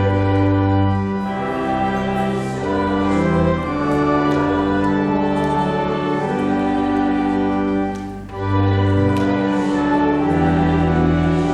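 Church organ playing a hymn in held chords over a stepping bass line, with a brief break between phrases about eight seconds in.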